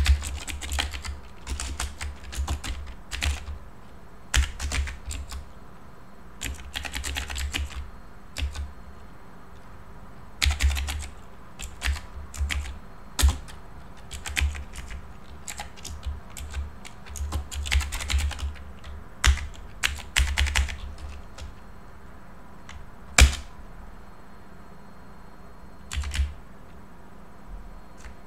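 Typing on a computer keyboard: irregular runs of key clicks broken by short pauses, with one louder single key strike a little past two-thirds through.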